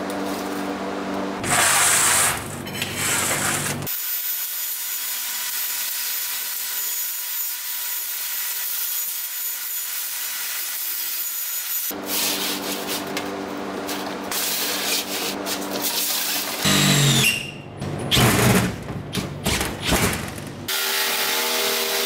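Short cuts of shop work on a sheet of diamond plate: sudden loud scraping and rubbing with brief squeals as the metal sheet is handled on the workbench, and near the end a jigsaw starting up and running as it cuts through the plate.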